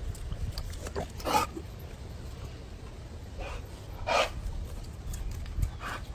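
A dog making two short, sharp sounds about a second and four seconds in, over a steady low rumble.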